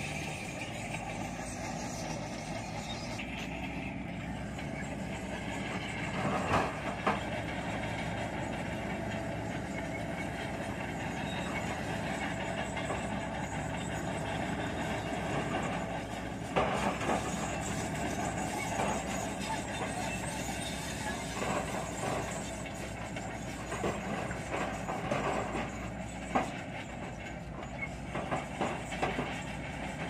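Dump truck's diesel engine running steadily while its bed tips, with knocks and thuds of soil and rocks sliding out and landing, about six seconds in, about halfway through, and repeatedly near the end.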